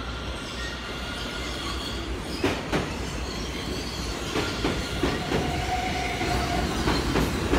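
R160 subway train on the New York Q express running through the station without stopping: a steady rail rumble with paired clacks as the wheels cross rail joints. A steady whine sounds for about a second near the middle.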